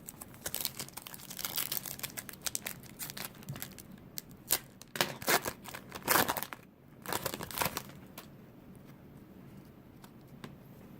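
A baseball card pack's wrapper being torn open and crinkled by hand: a long run of sharp crackles and rips, loudest around the middle, dying away for the last few seconds.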